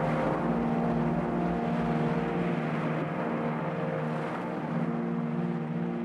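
Background music of slow, sustained low chords, changing every second or two.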